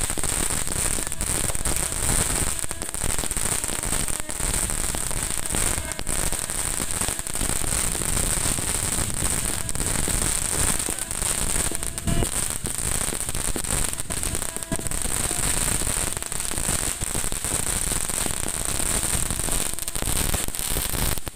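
Aerial fireworks going off in rapid succession: a dense, unbroken crackling and popping, with a steady high hiss over it.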